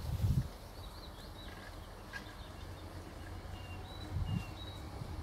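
Small birds chirping in woodland: a handful of short, high calls over a steady low background rumble, with two low bumps, one just after the start and one about four seconds in.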